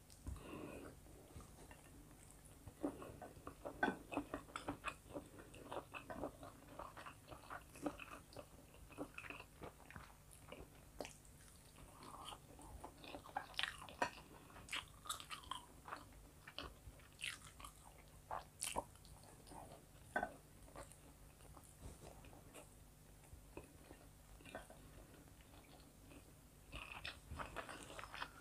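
Close-miked eating sounds: chewing and lip smacking, with many short, sharp mouth clicks scattered throughout, as rice and chicken fillet are eaten with the fingers.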